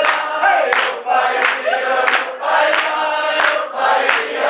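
Group of voices singing a cheerful sing-along refrain, with ukulele accompaniment and a steady beat of sharp claps about every two-thirds of a second.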